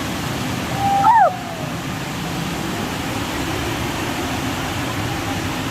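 Waterfall running with a steady rushing roar of falling water. About a second in, a short, loud high call rises briefly and then drops away sharply.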